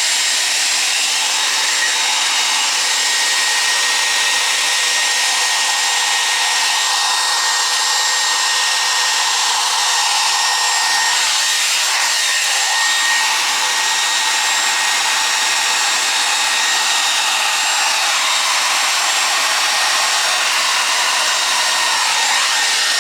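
Hair dryer running steadily on a constant setting: a loud rush of air with a faint thin whine from its motor.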